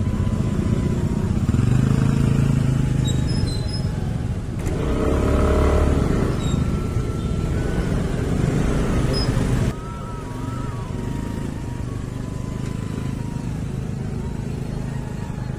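Motor scooter engine running as it is ridden slowly over a rough, unpaved road. The noise drops a step in level about ten seconds in.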